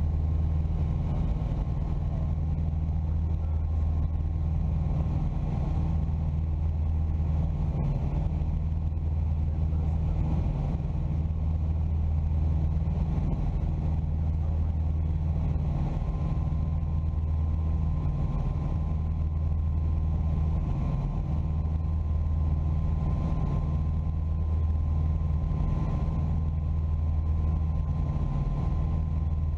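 Piper PA-34 Seneca's twin piston engines and propellers droning steadily in flight, heard from inside the cockpit. The deep drone swells and eases slowly every few seconds.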